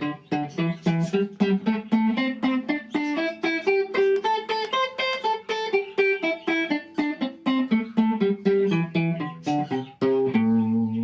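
Guitar playing a simple scale in a chicken-picking exercise, its notes alternately picked with a flatpick and plucked with the middle finger. The quick, even run of notes climbs up the scale and then comes back down.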